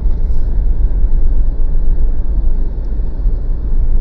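Mitsubishi Pajero diesel SUV driving along a snow-covered track: a steady low rumble of engine and tyres.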